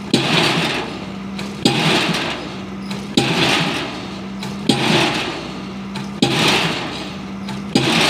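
Diesel pile hammer driving a precast concrete spun pile, about one blow every one and a half seconds, six blows in all. Each blow is a sharp bang followed by about a second of noisy exhaust, with a steady low hum between blows.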